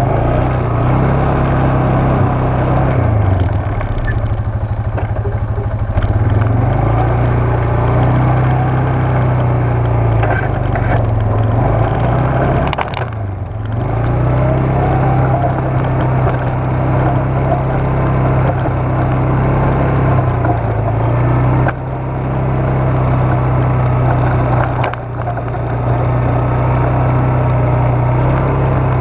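Engine of a plow vehicle running steadily as it drives and plows a snowy road: a loud, deep, even drone that wavers a little in pitch and dips briefly a few times.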